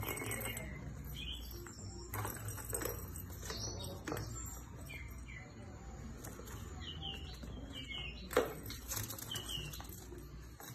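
Kittens playing with a cardboard hole-box toy with balls inside: scattered taps and thumps on the cardboard, the loudest about eight seconds in. Short, faint, high chirps come now and then.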